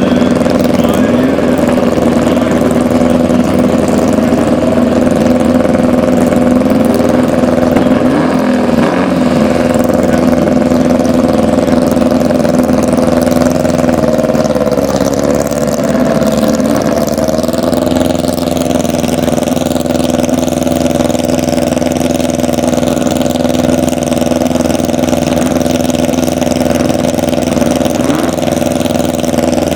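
Air-cooled Volkswagen drag car engine idling loudly and steadily, its pitch wavering briefly in the middle before settling again.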